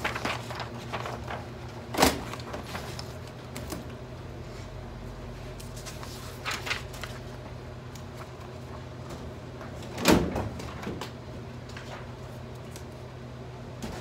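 Papers being handled and filed: sheets rustling and hanging file folders shifted in a filing-cabinet drawer, with two sharp knocks, one about two seconds in and a louder one near ten seconds. A steady low hum runs underneath.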